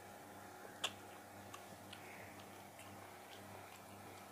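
Faint sounds of eating by hand from a steel plate: scattered soft clicks at an uneven pace, with one sharper click about a second in, over a low steady hum.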